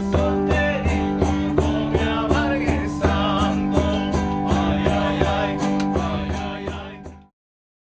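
Andean folk band playing live: acoustic guitar strummed in a quick, even rhythm under panpipes and singing voices. The music fades out shortly before the end.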